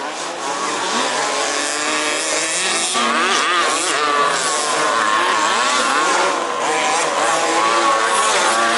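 Several 1/5-scale petrol two-stroke RC off-road racing cars running together, their engines revving up and down as they race around the track.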